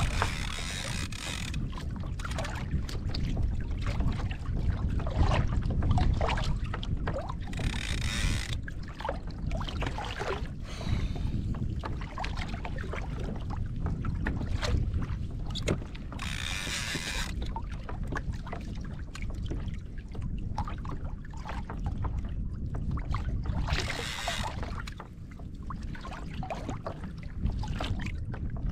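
Water moving against a fishing kayak's hull with a steady low wind rumble on the microphone, and a short hissing rush of water about every eight seconds, with light scattered clicks between.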